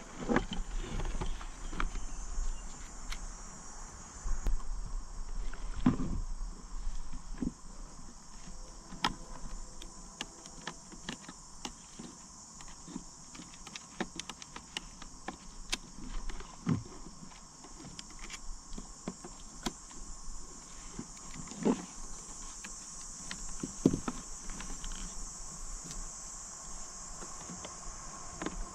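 Scattered clicks and knocks of hands handling the parts of a Minn Kota Ultrex trolling motor's foot pedal while the steering cable is fitted back in, with a few louder knocks, over a steady high-pitched hiss.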